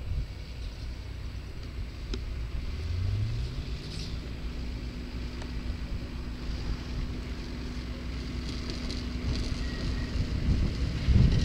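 Ford medium-duty high-rail truck running along the rails, its engine revving up about three seconds in, then holding a steady drone, growing louder near the end as it comes close.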